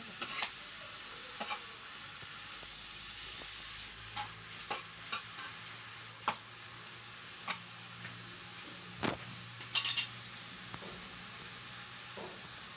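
Metal spoon clinking and scraping in a small metal pan as mushrooms are stirred and fried, over a low sizzle. The clinks are irregular, every second or so, with a louder cluster about ten seconds in.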